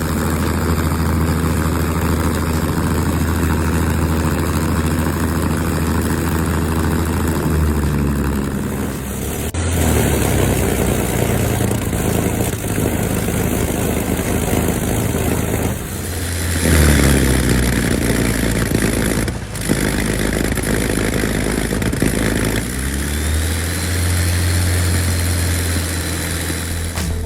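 Electric ducted fan of a radio-control jet running, its pitch sliding up and down with throttle changes, with a few abrupt changes where the sound cuts.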